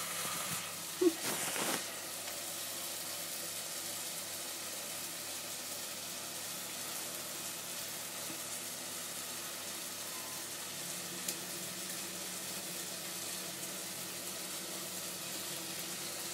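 Sardines sautéed with garlic and onion sizzling steadily in a frying pan. There is a knock and a short rustle about a second in.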